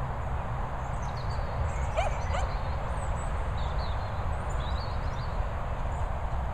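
Two short high yips from a dog about two seconds in, over a steady low outdoor rumble, with faint high bird chirps a little later.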